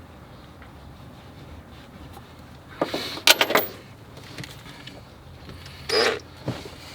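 Clicks and clatter of small metal tools and parts being handled, in a quick cluster about three seconds in, then a short rustling hiss about a second before the end.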